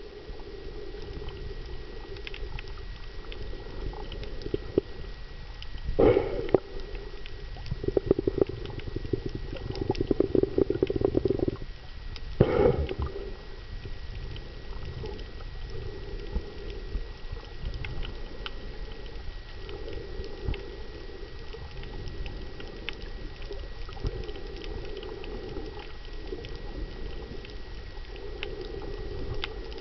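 Scuba diver breathing through a regulator underwater: a gurgling rush of exhaled bubbles every few seconds, with two louder, sharper bursts about six and twelve seconds in. A faint steady high tone runs underneath.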